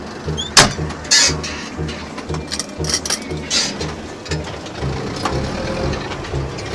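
Zetor 7245 tractor's four-cylinder diesel engine running under way, heard from inside the cab, its low note pulsing about three times a second. The cab rattles and knocks over it, the loudest a sharp clack about half a second in.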